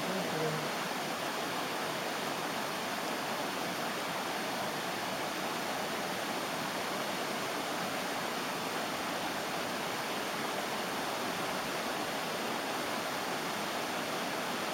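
Steady rush of river water pouring over a weir, an even, unbroken hiss.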